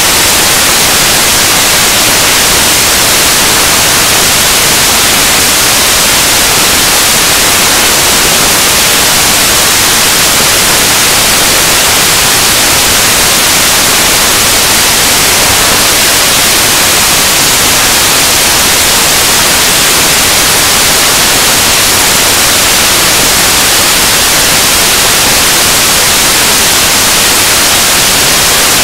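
Loud, steady static hiss, like white noise, filling the whole track with no speech audible.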